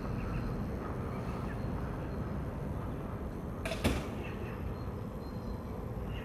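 Steady low background rumble with a single sharp knock a little under four seconds in.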